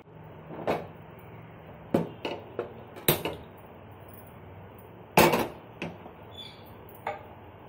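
Metal pan knocking and clanking against a gas stove's grate as it is set on the burner: several sharp knocks, the loudest and longest-ringing about five seconds in.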